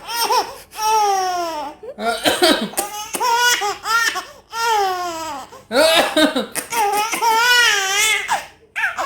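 A baby laughing hard: a string of long, high-pitched squealing laughs that glide up and down, with short breaths between them.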